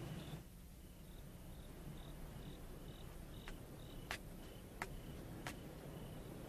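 Crickets chirping faintly, short high chirps about twice a second. In the second half there are four soft clicks about two-thirds of a second apart.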